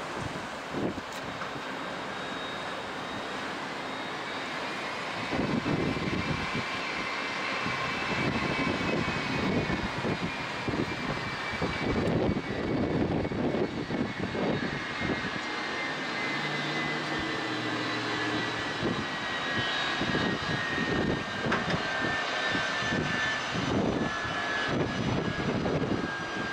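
Boeing 787-8 airliner's two GE GEnx-1B turbofans spooling up to takeoff thrust: a fan whine rises in pitch a few seconds in, then a crackling jet rumble grows louder through the takeoff run and climb-out, while the whine slowly sinks in pitch as the jet pulls away.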